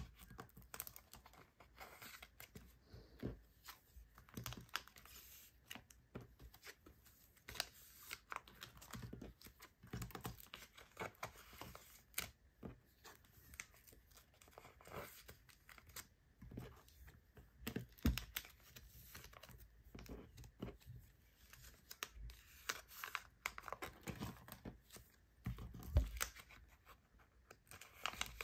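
Photocards being slid into clear plastic binder sleeves: the plastic pages crinkle and rustle, with many small taps and clicks of card against plastic. Two louder knocks stand out, one past the middle and one near the end.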